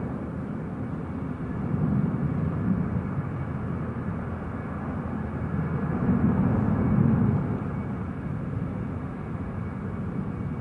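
Distant jet airliner's engines rumbling at takeoff power, a steady low rumble that swells and eases a couple of times.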